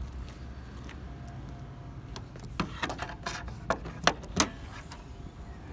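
A few sharp metallic clicks and clinks of parts being handled while working on the car, about halfway through, over a steady low hum.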